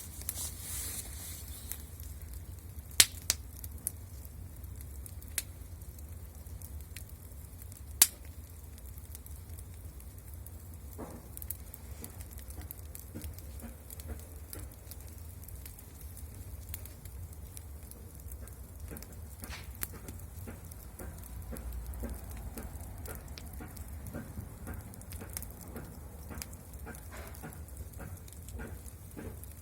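Bonfire crackling, with several sharp loud pops in the first eight seconds over a low steady rumble.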